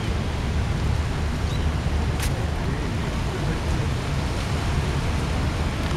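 Wind rumbling on the camera's microphone, a steady low noise, with one sharp click about two seconds in.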